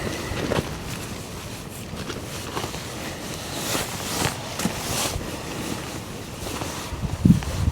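Wind gusting on the microphone, with scattered rustling and handling noises; the loudest gust comes near the end.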